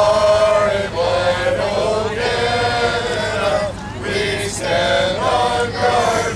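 A group of people singing together in chorus, holding notes with short breaks between phrases.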